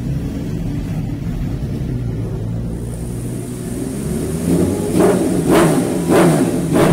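Superbike engine running low and steady. About two-thirds of the way through, music with a heavy drum beat about every 0.6 s comes in over it.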